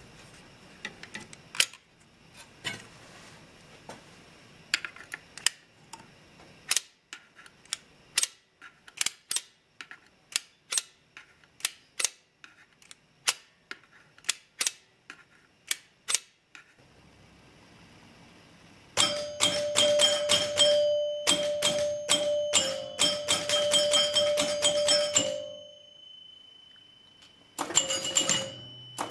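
Electromechanical pinball score reel stepping with sharp single clicks, one or two a second, as the reel unit is worked by hand. About 19 seconds in, the score reels advance in a fast run of clicks over the ringing of the machine's chimes, stopping suddenly; a second run starts near the end.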